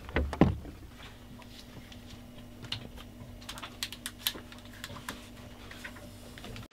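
Clicking and tapping on a laptop keyboard, irregular and fairly light, over a faint steady hum. A couple of heavier thumps come right at the start.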